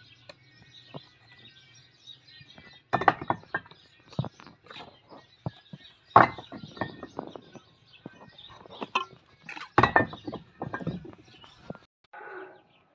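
Mason's steel trowel tapping and scraping on bricks and wet mortar as mortar is spread along a fresh brick course: irregular sharp knocks and scrapes.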